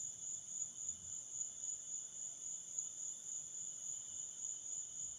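Crickets trilling steadily in a continuous night chorus, a high, even shrill with a fainter lower band beneath it.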